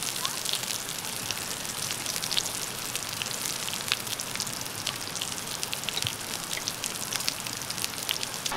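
Slices of pork jowl sizzling on a round griddle pan: a steady hiss full of small, irregular crackling pops of spitting fat.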